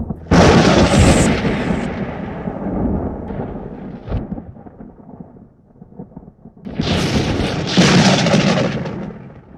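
Cinematic logo-reveal sound effects: a sudden loud rushing hit with a deep rumble that dies away over several seconds, a short sharp crack about four seconds in, then a second rushing swell near seven seconds that fades out.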